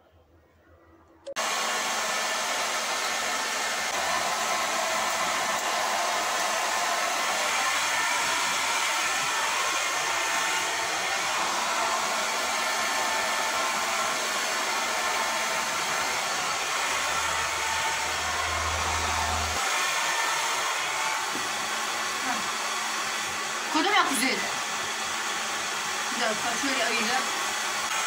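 Handheld hair dryer switched on about a second in and blowing steadily: an even rush of air over a steady low hum. A couple of brief gliding sounds rise over it near the end.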